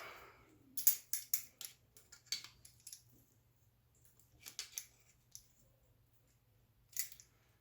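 Light metallic clicks and clinks in a few short clusters as quarter-inch steel round-stock hooks are handled and their arms bent open.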